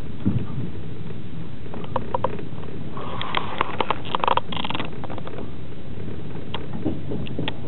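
Passenger train carriage under way, heard from inside: a steady low rumble of the wheels on the track, with a cluster of sharp clicks and rattles between about two and five seconds in.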